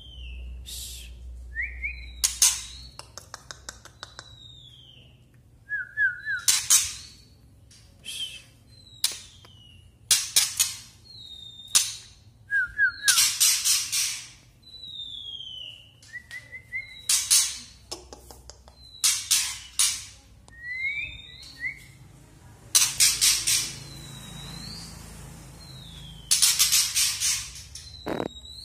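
Juvenile male white-rumped shama (murai batu trotol) practising its song: repeated bursts of dry crackling clicks, its 'kretekan', alternating with short down-slurred whistles and brief chirps, with a dense rattle of clicks near the end. The crackling marks a young male still learning to sing, the sound keepers listen to when judging a promising bird.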